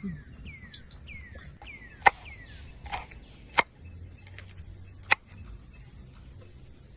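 Three sharp chopping knocks, about a second and a half apart, over a steady high insect drone, with a bird's short falling whistles repeating in the first couple of seconds.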